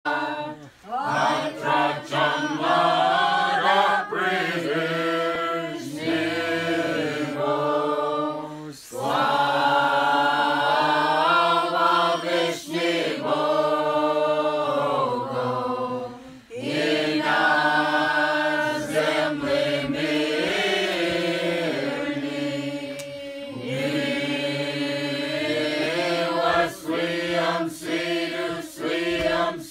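A crowd of people singing a Slaaviq Christmas carol together, with no instruments. The carol comes in long phrases with short breaks between them.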